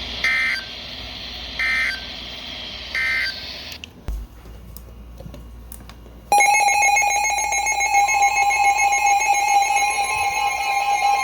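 Three short bursts of Emergency Alert System end-of-message data tones from a radio receiver over background hiss. The hiss then cuts out. About six seconds in, a loud, steady electronic alert tone starts, and a second, slightly higher tone joins it about two seconds later.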